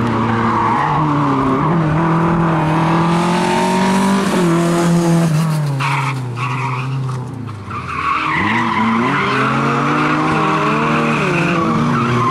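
Lada 2107 rally car's engine revving up and down as it drifts sideways round tight turns, with tyre squeal through the slides. About six seconds in the engine note falls away briefly, then climbs again about eight seconds in.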